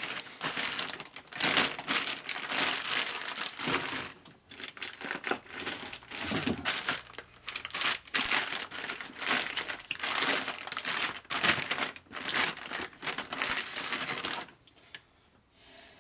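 Plastic bag and paper wrapping crinkling and rustling as they are handled and dug through, in irregular bursts that stop near the end.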